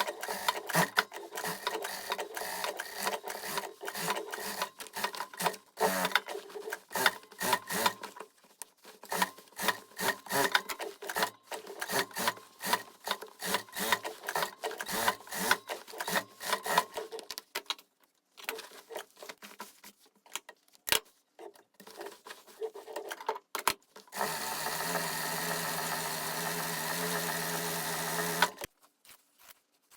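Sewing machine stitching in quick runs of rapid clicking, slowing to a few separate clicks. Near the end comes a steady, even-pitched hum for about four seconds that cuts off suddenly.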